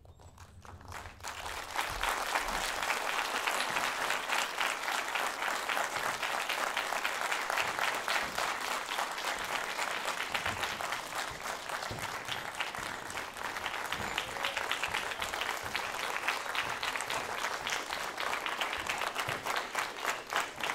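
Theatre audience applauding: the clapping starts about a second in, swells over the next second and then holds steady and dense.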